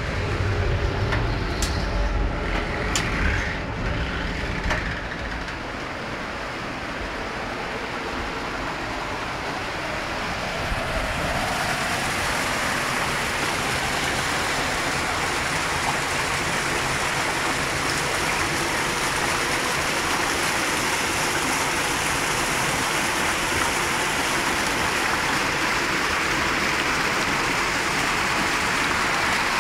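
Water rushing steadily down a wooden millrace flume of a watermill, a broad hiss that grows fuller about ten seconds in. In the first few seconds there is a low rumble with a few sharp knocks.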